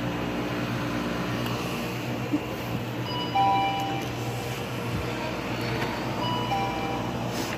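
Electronic door-entry chime sounding a descending two-note ding-dong twice, about three seconds in and again about six seconds in, over a steady low hum.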